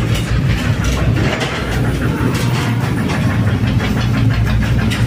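Motorised rail cart (motor lori) travelling along the rails: its engine runs steadily with a low hum while the wheels and body clatter and knock.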